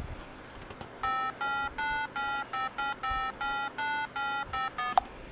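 A short electronic jingle of about a dozen beeping notes stepping up and down in pitch, starting about a second in, ending with a sharp click.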